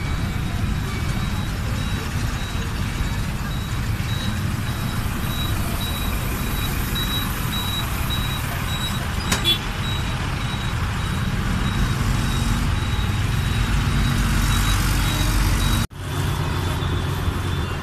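Road noise and rumble heard from inside an open-sided three-wheeled rickshaw on the move, with a faint repeating high beeping and a single sharp click about halfway. Near the end the sound cuts briefly and gives way to street traffic noise.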